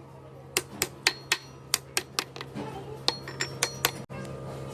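Hammer blows on metal, about a dozen sharp ringing strikes at three or four a second, stopping shortly before the end over a steady low hum.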